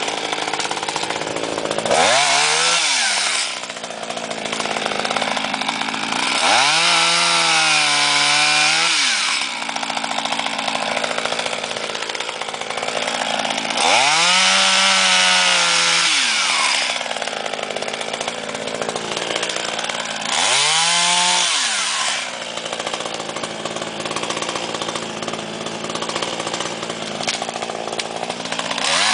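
ECHO CS-270WES two-stroke chainsaw (26.9 cc) running at low speed and revved up four times, each time climbing in pitch, holding for one to three seconds and dropping back to idle. A fifth rev starts near the end.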